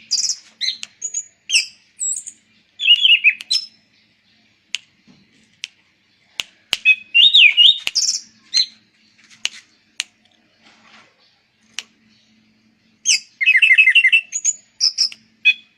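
Anis cendana (orange-sided thrush) singing in bursts of quick, varied warbling phrases separated by pauses, with a few sharp clicks in the gaps.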